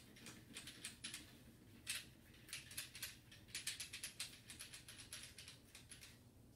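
Cleaning pad wiping a Springfield Hellcat 9mm pistol, around the magazine well: faint, quick, irregular scratchy strokes and light clicks of the pad and gloved hands against the gun.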